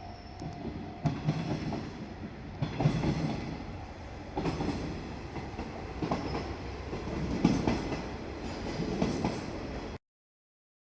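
Diesel railcar train running past over steady low engine rumble, its wheels knocking over rail joints in clusters every second or two. The sound cuts off abruptly near the end.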